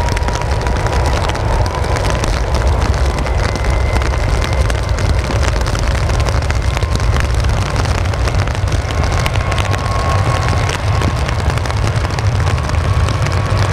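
Boeing 777-300 airliner's two turbofan engines at takeoff thrust on the takeoff roll: a loud, steady low rumble with a high whine over it.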